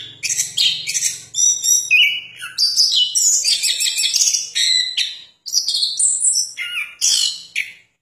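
A caged chestnut-capped thrush (anis kembang) singing a fast, varied song of high chirps and short trills, stopping briefly about five and a half seconds in.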